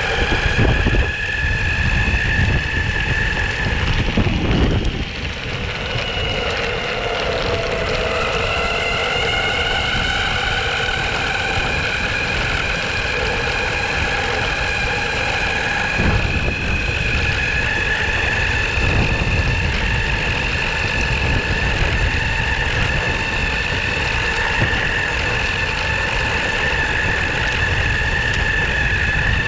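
Onsra Black Carve belt-drive electric skateboard under way: the belt-drive motors give a steady high whine that climbs in pitch about eight seconds in as the board speeds up. Beneath it runs the low rumble of its rubber wheels rolling.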